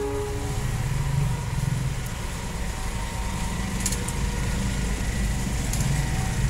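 Road traffic: motorcycle and truck engines running in slow, congested traffic, a steady low rumble.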